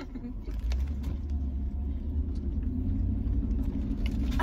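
Low, steady rumble of a car heard from inside its cabin, growing louder about half a second in and then holding.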